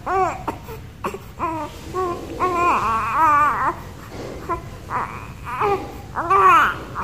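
One-month-old baby vocalising in short, high-pitched coos and whines, with a longer wavering call about three seconds in and a louder one near the end.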